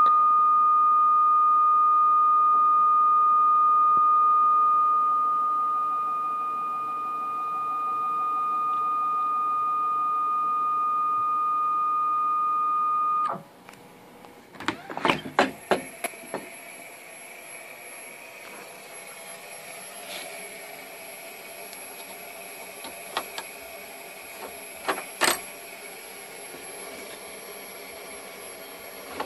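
A homemade CNC machine gives a steady high whine that cuts off sharply about 13 seconds in. After that come light clicks and knocks as the knob hold-downs are loosened and the carved Corian tile is handled on the plywood bed.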